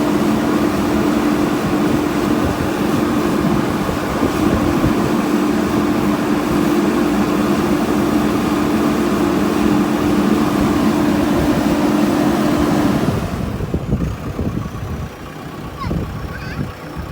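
JCB backhoe loader's diesel engine running steadily at working revs with a constant drone. Near the end it drops suddenly to a quieter, uneven rumble.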